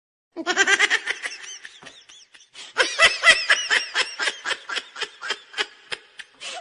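Laughter sound effect: high-pitched laughing in quick rhythmic bursts, starting just after a moment of silence and coming in two bouts with a short break about two seconds in.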